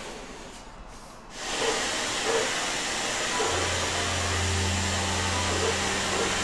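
Canister vacuum cleaner running as its floor nozzle is worked over the floor: a steady rushing of air that grows much louder about a second and a half in, with a low motor hum joining past the middle.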